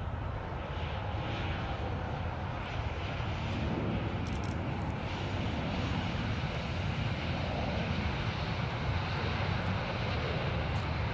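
Boeing 737-800's CFM56 jet engines running steadily as the airliner rolls along the ground after landing, a low, even roar that grows slightly louder.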